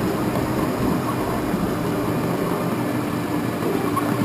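Ride-on scale-model electric tram running along its track: steady rolling noise with a faint steady hum.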